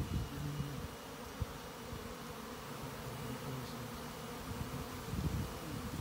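A swarm of honeybees buzzing steadily, many bees in flight around the cluster hanging from a tree branch. Low wind rumble on the microphone at the start and again near the end.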